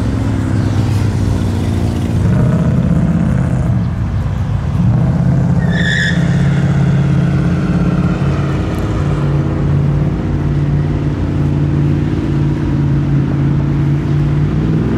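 A car engine running nearby, its pitch steady with small rises and falls. A short high chirp sounds about six seconds in.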